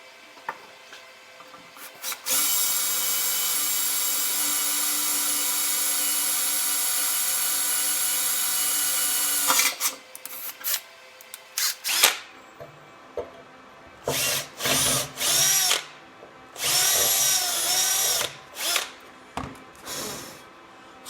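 Electric drill with a small bit boring a starter hole through a broken-off bolt, lubricated with oil. It runs steadily for about seven seconds, then comes in a string of short bursts, the motor speeding up and slowing down with each one.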